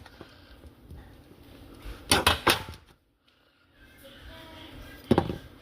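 Short knocks and clatters from kitchen things being handled: a quick cluster about two seconds in and another near the end. All sound drops out briefly around the middle.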